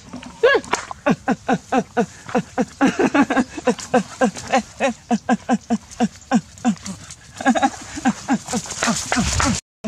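A voice giving a rapid string of short calls, each falling in pitch, about three a second.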